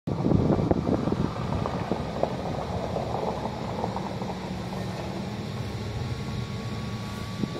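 Wind buffeting the microphone over a steady low hum, with a faint steady high whine.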